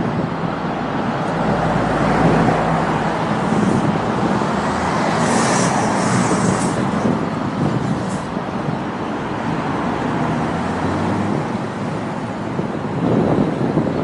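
Road traffic: cars passing along a street, a steady run of tyre and engine noise.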